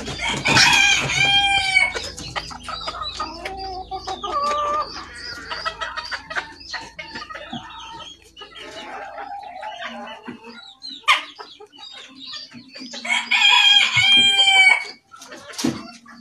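A flock of Cochin chickens clucking and calling as they feed, with a rooster crowing twice: once just after the start and again near the end.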